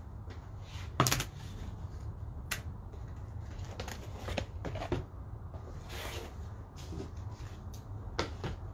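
Flat cardboard boxes being picked up, slid and laid down on a table: scattered knocks and slaps, the loudest about a second in, over a steady low rumble.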